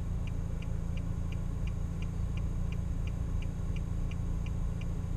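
A car idling with a steady low rumble, and an indicator flasher clicking evenly about three times a second.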